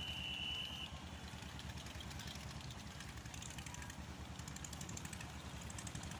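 Small engine running steadily with a fast, even chug, typical of a diesel engine on a river boat. A short high whistle-like tone sounds at the very start.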